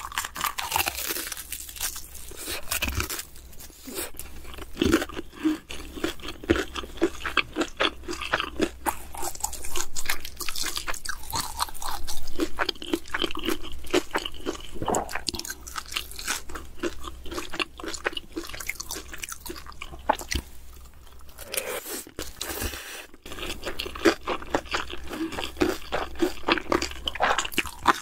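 Close-miked chewing and crunching as a person eats crisp pan-fried dumplings, black bean noodles and kimchi: a dense run of wet crackles, crunches and bites, with a brief lull about three quarters of the way through.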